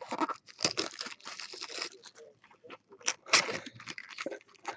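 Foil-wrapped trading card packs crinkling and rustling in irregular crackly bursts as they are handled and shuffled together, with short pauses between.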